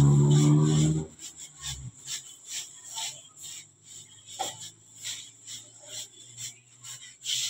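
Loud music cuts off about a second in. After it come faint, quick rubbing and tapping sounds of bread dough being worked by hand on a steel table, over a low steady hum, with a brief squeak twice.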